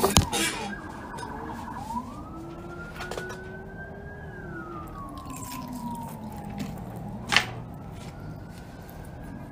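Emergency vehicle siren in a slow wail, its pitch climbing gradually and then sliding down, each rise and fall taking about four to five seconds. A few sharp knocks at the very start and a single click about seven seconds in.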